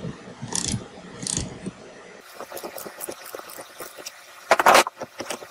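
Ratchet wrench clicking as it turns the forcing screw of a three-jaw puller on a mower engine's crankshaft blade adapter, which is seized and will not budge. There is a short, loud, harsh grating burst about four and a half seconds in.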